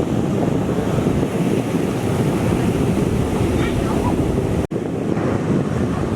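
Wind buffeting the microphone over the wash of ocean surf, a steady low rumble that cuts out for an instant about two-thirds of the way through.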